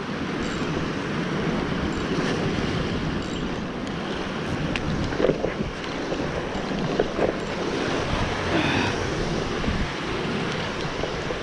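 Wind buffeting the microphone over the steady wash of the sea.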